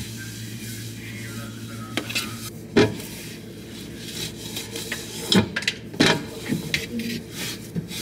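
A cloth wiping glass refrigerator shelves, rubbing back and forth, with a few sharp knocks against the shelves, the loudest about three seconds in and twice more around five to six seconds.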